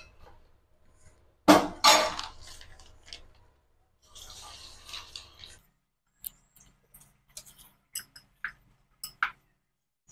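Fritter batter hitting hot frying oil in an aluminium kadai: a loud burst of sizzling about one and a half seconds in that dies away, with more sizzling around four to five seconds in. Near the end come a string of light metallic clinks from kitchen utensils.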